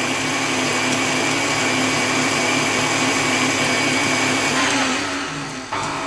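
KitchenAid Artisan stand mixer running at medium speed, its flat beater working a batter of butter, sugar and eggs: a steady motor hum with a high whine. About five seconds in it winds down, and a sharp click follows near the end.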